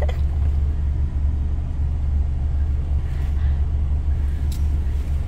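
Steady low rumble of a pickup truck heard from inside its cab, the vehicle's running noise.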